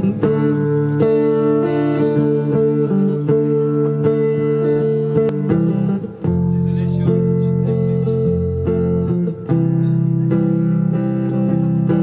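Live band playing the instrumental opening of a song on guitars, with held chords and a short break about six seconds in.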